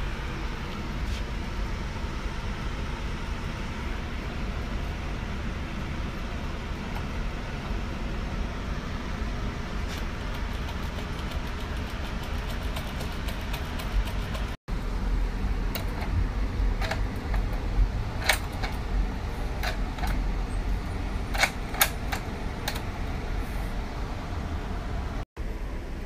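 Steady low rumble, with scattered sharp metallic clicks of a lock tool working in a lock cylinder, coming more often and louder in the second half.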